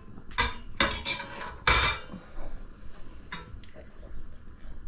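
Metal wire rack clattering against an air fryer basket as it is set in place over a pie. There are several sharp clinks in the first two seconds, then one quieter knock.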